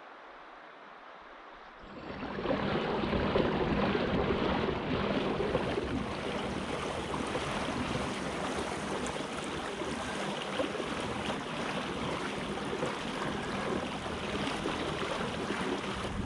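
Rushing river water, a steady wash that comes in suddenly about two seconds in after a quieter opening.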